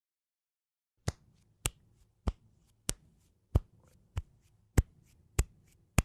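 A steady run of sharp clicks starting about a second in, a louder click about every 0.6 s with a fainter one between each, like a ticking rhythm.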